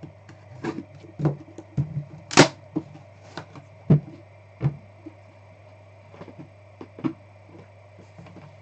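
Irregular clicks, taps and rustles from trading-card boxes and packs being opened and handled, the loudest sharp click about two and a half seconds in, over a steady low electrical hum.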